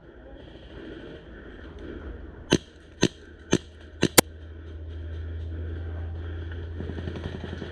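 CO2 airsoft replica Dan Wesson 715 revolver firing a string of sharp shots, four about half a second apart and a fifth close behind the fourth. A low rumble builds in the second half.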